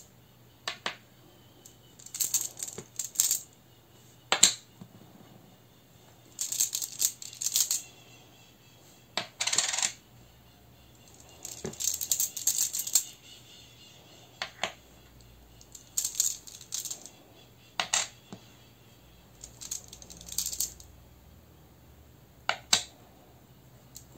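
Rune tiles rattling together inside a cloth bag and clinking as they are drawn out and set down on a table. The sound comes in short clusters of clicks and rattles every second or two.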